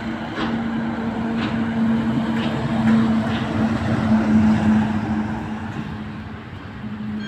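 Heavy truck passing on a highway: a steady engine drone with tyre rush, swelling to its loudest midway and then fading.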